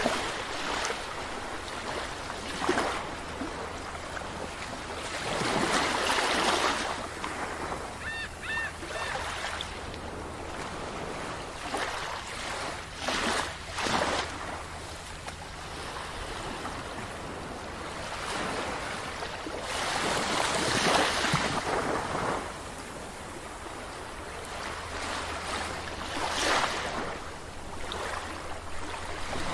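Sea waves breaking and washing up a beach, swelling and falling every few seconds. About eight seconds in, a gull gives a brief call of a few short notes.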